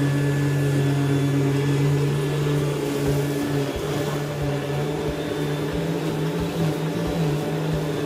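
Rainbow water-filter vacuum cleaner running, its motor and carpet power nozzle giving a steady hum. The nozzle's tone wavers from about three seconds in as it is pushed back and forth over the carpet, with small ticks as loose debris is sucked up.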